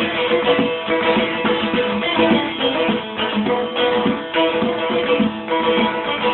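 Instrumental folk tune on a plucked string instrument, with quick, rapidly repeated strummed notes.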